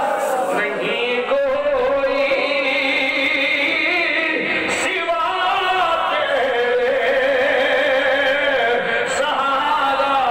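A man's voice chanting devotional verses through a microphone, holding long wavering notes that slide up and down.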